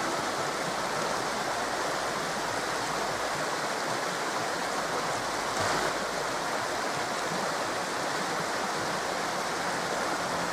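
Steady rush of flowing water, with no music over it.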